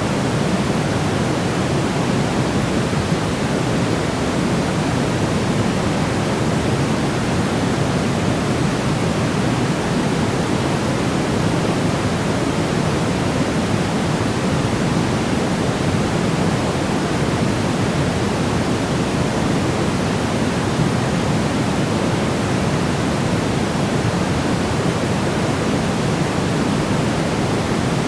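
Steady, unbroken white noise for baby sleep: an even hiss weighted toward the low end, without any change.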